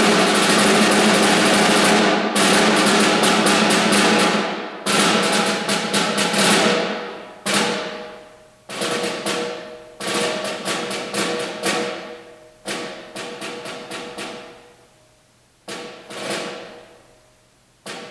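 Concert snare drum played solo: a sustained roll for about two seconds, then phrases of quick strokes and accents, each phrase ringing away into a short pause before the next.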